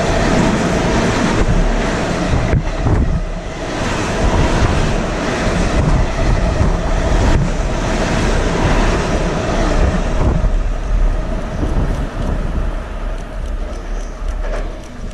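JR East E351 series Super Azusa limited express electric train passing through the station at speed, close by: a loud, steady rush of wheels and running gear with deep rumble and a couple of sharp knocks. It eases off over the last few seconds as the end of the train goes by.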